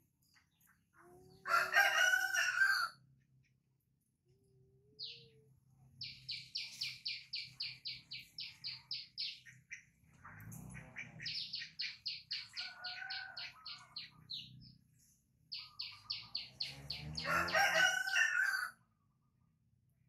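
A rooster crowing twice, about a second and a half in and again near the end, the loudest sounds here. In between, a small bird repeats a rapid high chirping call in runs of a few seconds.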